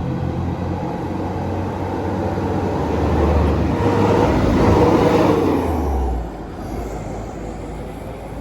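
A large diesel road vehicle's engine climbing past on an uphill grade. The rumble builds to its loudest about four to five seconds in, then drops away sharply about six seconds in.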